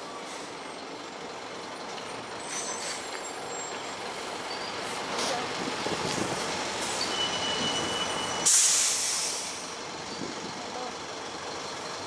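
Road traffic rumbling and slowly building as a heavy vehicle goes by. About eight and a half seconds in there is a brief high squeal, then a sudden sharp hiss of air that fades within about a second, as from a heavy vehicle's air brakes.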